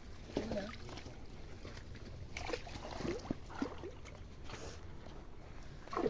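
Pond water sloshing and splashing as fishermen work a net, in short irregular splashes and trickles, with faint voices in the background.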